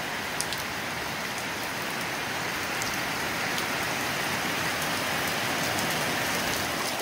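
Steady rain falling, with scattered close drips ticking through it.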